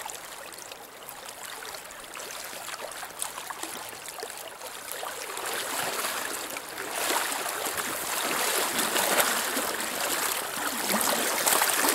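River water running steadily over a shallow riffle. It grows louder from about halfway through, with splashing as someone wades through it while landing a fish.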